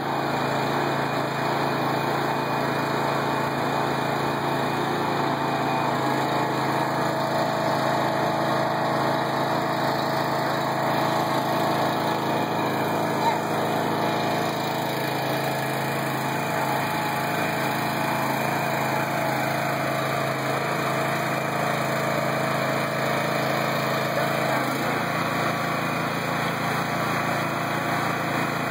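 Engine-driven hydraulic power unit running steadily, driving the jacks that raise a house; its note drops a few seconds before the end.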